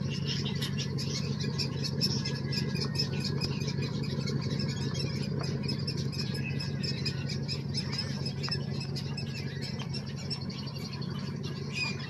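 A roosting colony of egrets calling all at once: a dense, unbroken chatter of short, high calls from many birds, over a steady low hum.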